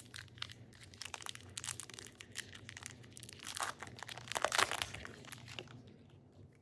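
A pack of baseball trading cards being torn open, its wrapper crinkling and tearing in quick crackles that peak about four seconds in, then die away.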